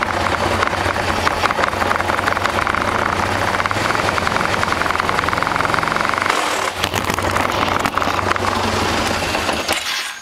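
2009 Polaris Sportsman 550 ATV running under load against the held brake, its transmission making a very loud, fast ratcheting rattle over the engine; the sound changes about six seconds in and dies away near the end. The owner takes it for something slipping on a spline shaft inside the transmission.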